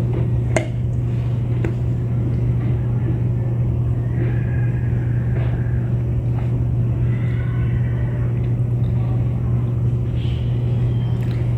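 Steady low rumbling drone, with a single sharp click about half a second in and faint higher tones coming and going around the middle.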